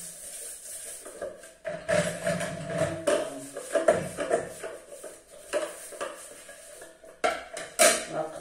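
Kitchen dishes being handled, with a metal pot lid set down on a ceramic serving platter in a sharp clank near the end, the loudest sound. A steady hum runs underneath.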